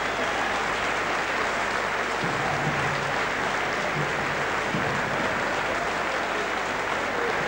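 Boxing crowd applauding steadily, a dense wash of clapping.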